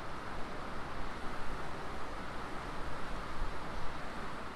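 Steady rushing background noise with an unsteady low rumble underneath.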